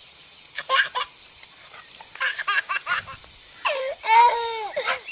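A small child laughing and squealing in bursts: short ones about a second in and in the middle, and a longer run near the end.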